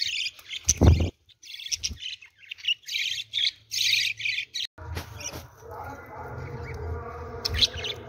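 Budgerigars chattering in quick high chirping bursts, with a single low knock about a second in. About five seconds in the chatter breaks off and a steady low hum takes over, with only a faint chirp or two.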